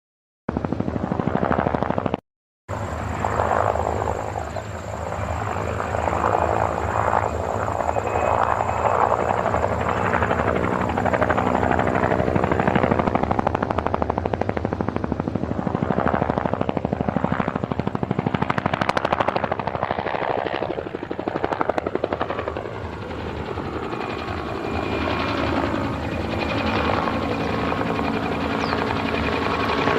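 Helicopter running, a fast steady beat of rotor blades over a continuous engine drone, with a brief cut to silence about two seconds in.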